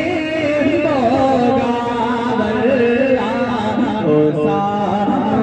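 A man singing an Urdu devotional kalam in a slow, ornamented melody: long notes that waver and bend, with one held steady note about four seconds in.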